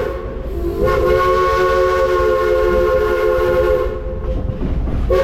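Steam train whistle blowing a chord of several steady notes. A blast breaks off at the start, a long blast of about three seconds follows after a short gap, and a short blast comes near the end.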